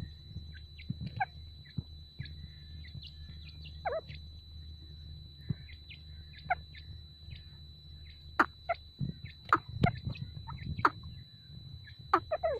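Francolin giving short, sharp, falling call notes at irregular intervals, thickest and loudest in the second half, over a steady high whine.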